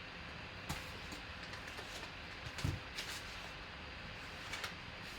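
Steady faint room hum with a few soft, short clicks and taps, about five in all, scattered through it.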